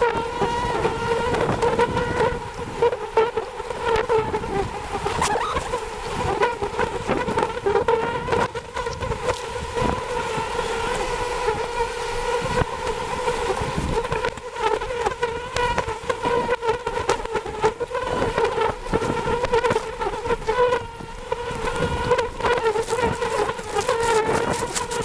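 A swarm of honeybees buzzing around a wild hive: a loud, steady, wavering hum with scattered short clicks and knocks.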